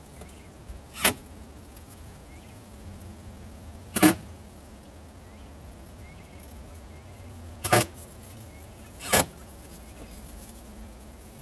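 Cordless drill-driver run in four short bursts a couple of seconds apart, driving screws through a Solexx greenhouse panel into the wooden purlins.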